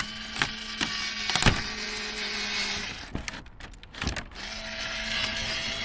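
HYCHIKA cordless electric mini screwdriver running under load into soft wood, a steady small-motor whine that it handles without trouble. It runs for about three seconds, stops briefly with a few knocks, then runs again.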